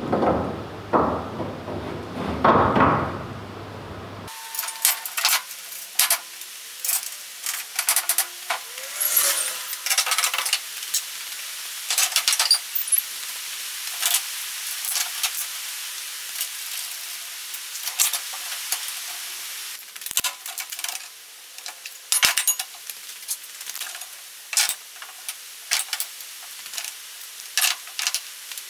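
Rapid clicks and clatter from a fibreglass wheel arch being handled, offered up to a steel wing and clamped with locking pliers. From about four seconds in, the sound turns thin, with no low end.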